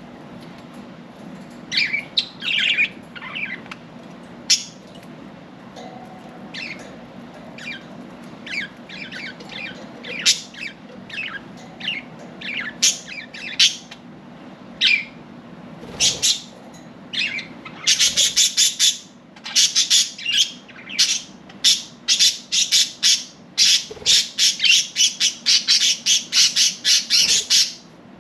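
Pet budgerigars chirping and squawking, with scattered short calls at first. About two-thirds of the way in comes a rapid run of harsh squawks, several a second, that stops just before the end. A faint steady low hum lies underneath.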